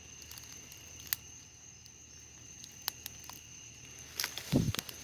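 Steady high-pitched drone of night insects, with a few faint scattered ticks and a short cluster of sharper clicks and a low knock about four seconds in.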